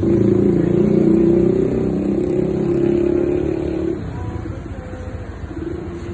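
Honda Click 125i scooter's single-cylinder four-stroke engine revved through its stock exhaust, held up at steady high revs, then dropping suddenly back to idle about four seconds in.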